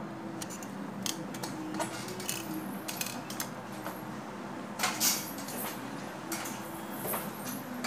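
Metal forearm crutches clicking and clanking as they are handled and set down on a tiled floor, with a run of irregular sharp knocks and metallic clinks; the loudest knock comes about five seconds in. A faint steady hum underneath.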